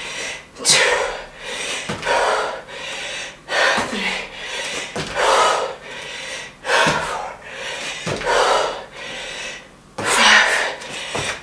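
A woman breathing hard through jump squats, with a forceful exhale about every one and a half seconds, each starting with a short thud as she lands.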